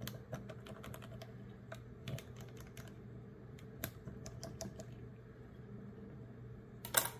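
A thin tool poked down among garlic cloves in a brine-filled glass canning jar to free trapped air bubbles: faint, irregular light clicks and taps against the glass and cloves. A short, louder rattle comes near the end.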